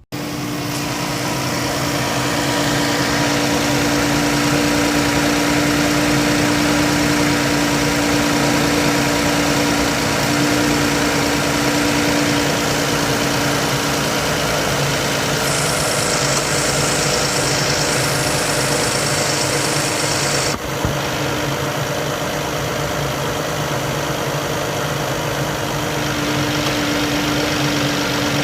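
Minivan engine idling steadily, with a single click about twenty seconds in.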